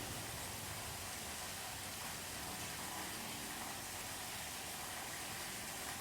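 Steady rain heard from indoors, an even, unbroken wash of noise with no thunder.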